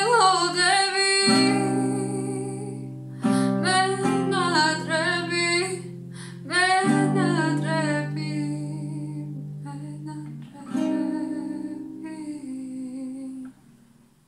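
A woman singing a slow Georgian song, accompanying herself on an acoustic guitar with a few slow strummed chords left to ring. The voice falls away in the second half, and a last strummed chord rings on until it is stopped short near the end, closing the song.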